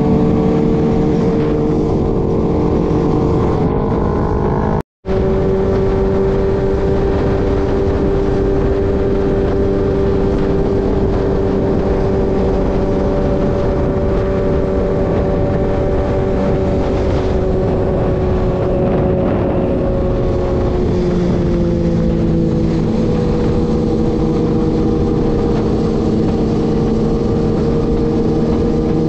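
Motorcycle engine running steadily at cruising speed on the highway, with wind and road noise over it. The sound cuts out for a moment about five seconds in, and the engine note falls a little about three quarters of the way through.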